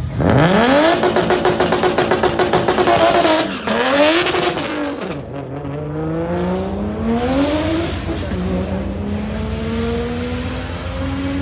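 BMW 135i's single-turbo N54 straight-six launching hard down a drag strip. The engine note climbs quickly, holds high with a rapid pulsing for about three seconds, then falls and climbs again at each upshift, about three times, fading as the car pulls away.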